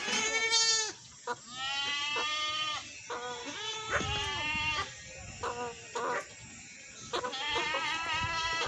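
Goats bleating over and over: about seven calls, some short and some over a second long, with short gaps between them.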